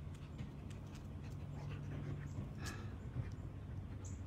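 Sounds of a dog close by, over a steady low hum, with scattered small clicks and one sharper click a little past the middle.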